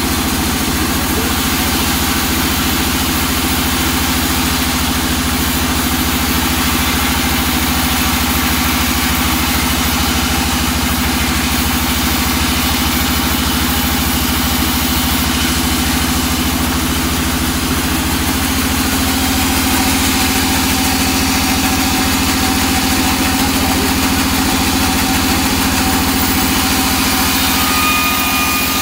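Sawmill band saw running steadily while a small teak board is fed through and ripped lengthwise. A few thin, higher whining tones join in over the last several seconds.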